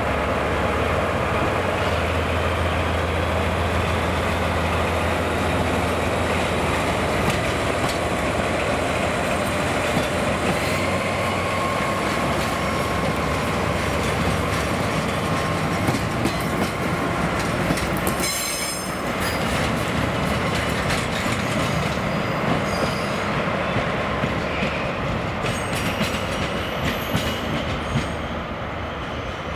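Two JR DE10 diesel-hydraulic locomotives and the Maya 34 track-inspection car rolling slowly past. A deep, steady diesel engine hum is strongest for the first several seconds, then the wheels click over the rail joints, with a brief high squeal about two-thirds of the way through.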